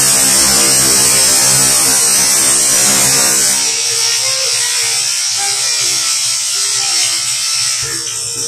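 Onion pieces sizzling in hot oil in a frying pan: a loud, even hiss that eases slightly about halfway through.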